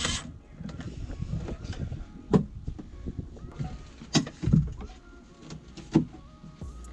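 Milwaukee Fuel brushless cordless driver running in short spurts as it drives the mounting screws, with three sharp knocks about two seconds apart.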